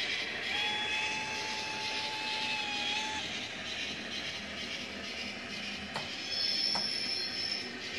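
H0-scale model trains running on a model railway layout, a steady rush of motors and wheels on the track. About half a second in, a long steady tone sounds for nearly three seconds. Near the end there are two sharp clicks.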